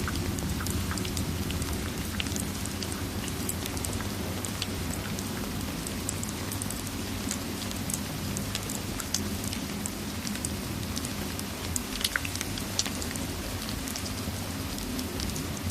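Steady rain sound mixed with a crackling fireplace: a constant patter and low rumble with scattered sharp crackles and pops, a few louder pops near the end.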